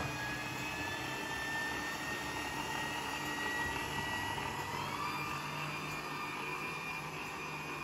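Stand mixer motor running steadily with a thin whine that rises slightly in pitch, its flat beater working almond and coconut flour into a wet cookie dough.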